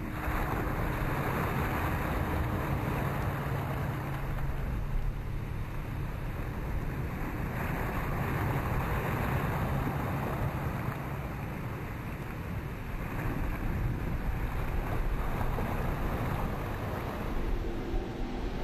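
Surf washing up over sand at the water's edge, a rush of water that swells and eases every few seconds. A low steady hum runs beneath it and stops about two-thirds of the way through.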